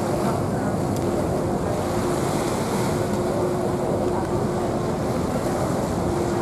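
Steady rush of wind and water aboard a moving passenger boat, with the vessel's engine giving a faint, even hum underneath.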